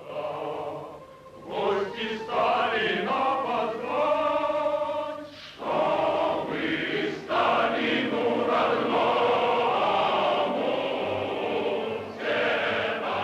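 A choir singing in long held notes, with short breaks between phrases.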